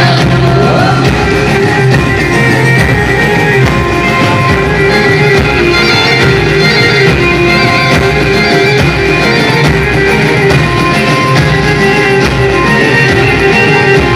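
Loud live dandiya music from a stage band with dhols and other drums, played over the sound system, with a steady beat.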